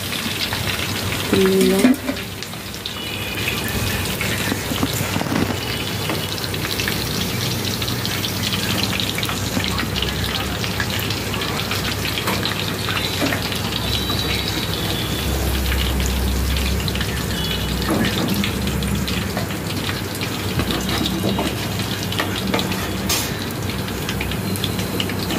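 Battered chicken pakoras frying in hot rice bran oil in a kadai, the oil sizzling steadily.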